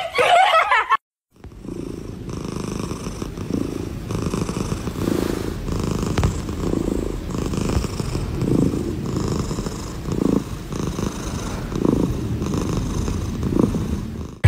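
Tabby cat purring close to the microphone, a steady low rumble that swells and fades in a regular rhythm a little faster than once a second. It starts about a second and a half in, after a brief gap.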